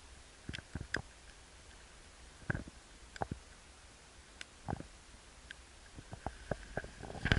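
Scattered soft ticks and taps on a Sony HDR-AS15 action camera's housing, about a dozen at irregular intervals, over a faint steady background noise.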